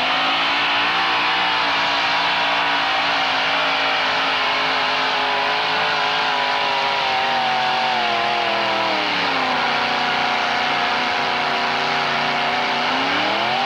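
Modified pulling pickup truck's engine running hard at high revs as it drags a weight-transfer sled. The revs climb at the start, hold steady, sag about eight to nine seconds in, then climb again near the end.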